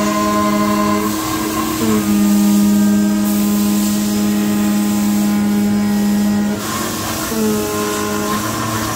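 CNC cutting machine cutting a thick PVC sheet: a steady hum runs under a louder whine from the tool head's motion, which cuts out about a second in, restarts with a short glide and runs until about six and a half seconds, then comes back in short stretches near the end.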